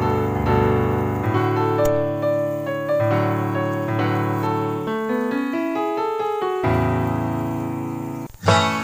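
Background music: a slow piano piece with held notes. Near the end it breaks off briefly and another piece of music starts.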